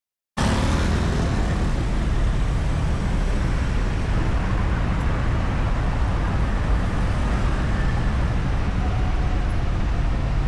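Continuous highway traffic noise: the engines and tyres of many passing vehicles blending into one steady, deep rumble. It starts abruptly just under half a second in.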